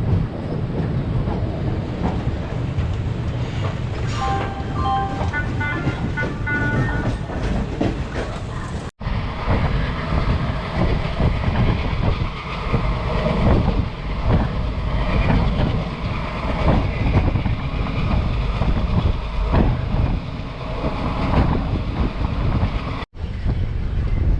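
Passenger train running, heard from on board: a steady rumble and rattle of the coach on the rails. About four seconds in comes a short run of high tones stepping between pitches for a few seconds, and the sound drops out for an instant twice.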